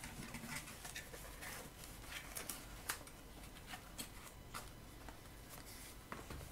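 Faint handling noise: bubble wrap crinkling and a small cardboard box being lifted out of a packed carton, heard as scattered light clicks and crackles.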